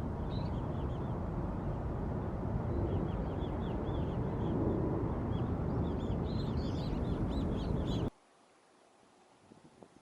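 Birds calling in quick runs of short, high chirps over a loud, steady rushing noise. Everything cuts off abruptly about eight seconds in.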